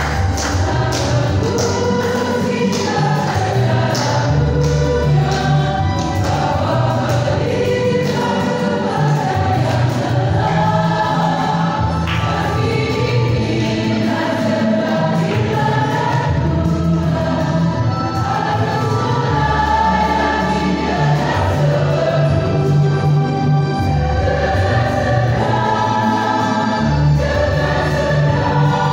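Church choir singing a gospel song, with a low accompaniment held under the voices.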